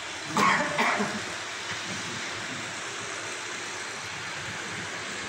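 Steady room hiss in a gap between speeches, with a short vocal sound about half a second in.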